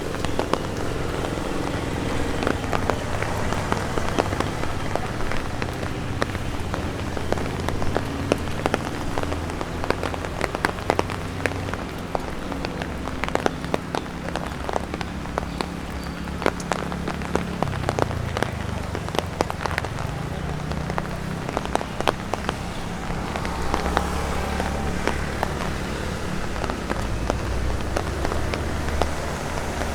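Steady rain with many separate sharp taps of drops falling from tree leaves onto an umbrella, over a low rumble.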